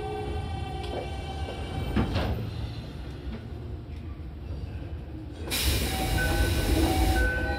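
Inside a Toei 5300 series subway car: the traction inverter's whine of several tones fades out over the first two seconds, over a low running rumble. A single sharp clunk comes about two seconds in, and a loud hiss of air starts about five and a half seconds in and lasts about two seconds.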